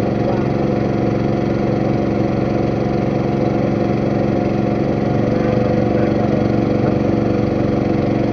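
Boat engine running steadily at an even cruising speed.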